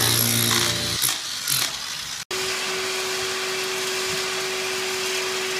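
Electric chipping hammer breaking up concrete floor beside a sump pit, stopping about a second in. After a brief dropout, a shop vacuum runs with a steady whine as it sucks pea gravel out of the hole.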